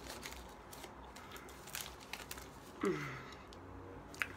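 Aluminium foil crinkling and crackling in small bursts as a half-eaten burrito is wrapped in it. About three seconds in there is one short, falling voice-like sound.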